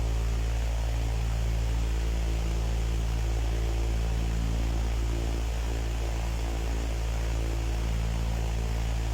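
A steady low electrical hum with a hiss over it, unchanging throughout.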